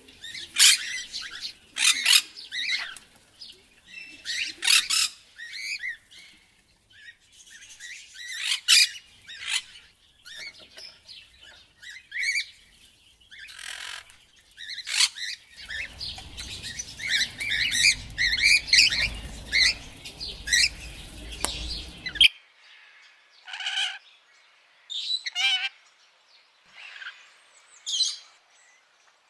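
Parrots calling in a rapid, irregular series of short, high calls. A low rumble sits under the calls for several seconds in the middle and cuts off abruptly.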